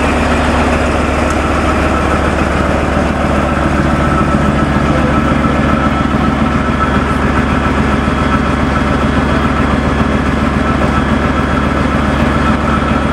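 Armoured tracked military vehicle's engine idling, a steady low hum that holds even throughout.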